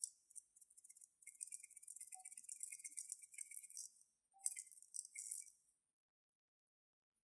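Tiny star-shaped glitter confetti rattling inside a small vial as it is shaken out, a quick, high, dense rattle. It comes in two spells: a long one, then after a brief pause a shorter one.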